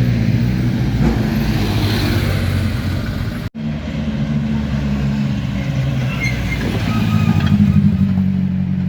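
Engines of a convoy of classic sports and racing cars running at low speed, a steady deep rumble with the engine note swelling slightly near the end. The sound breaks off for an instant about three and a half seconds in, then carries on.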